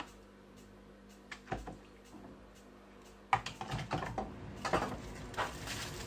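Kitchen handling sounds as dishes and a foil-lined tray are moved about. It is fairly quiet at first, with a soft thump about a second and a half in. A sharp knock comes a little after three seconds, followed by a run of light, irregular clicks and knocks.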